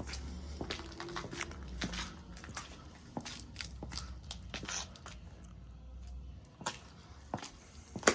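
Irregular crunching and clicking, a few short knocks a second, over a low rumble that stops about six and a half seconds in.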